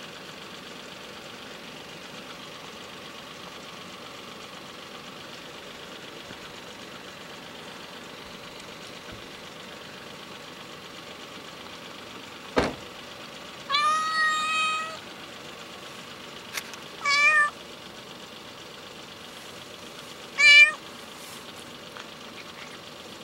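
Hungry ginger stray cat meowing three times: one long meow about halfway through, then two short ones, the last the loudest. A sharp click comes just before the first meow, over a steady faint background hum.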